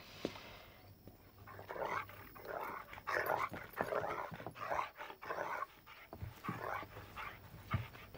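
A small fluffy puppy making short, rough growling sounds, repeated roughly once a second.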